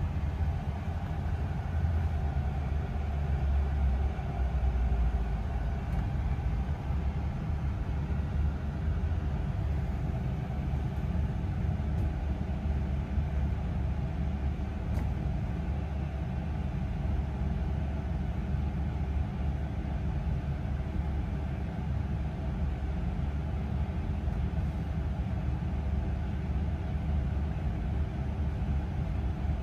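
London double-decker bus standing at a stop with its engine idling, heard from inside on the upper deck: a steady low rumble that holds even throughout.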